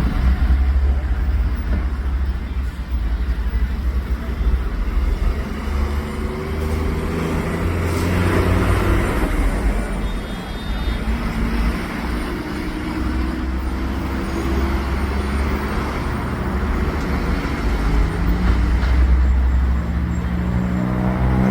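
A motor running under a heavy wind rumble, its pitch rising and falling repeatedly in the second half.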